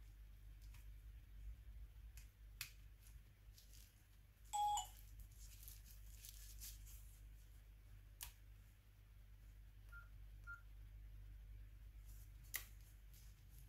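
Nokia N93 mobile phone giving a short electronic beep about a third of the way in, with two faint short beeps later. Sharp plastic clicks come from its casing and swivel hinge as the flip and display are turned.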